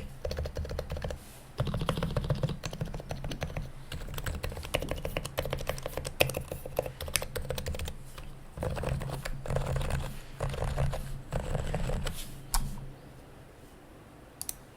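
Typing on a Topre keyboard with silenced, lubed FC660C switches and keycaps: fast runs of soft key presses in bursts with short pauses, tailing off to a few isolated keystrokes near the end.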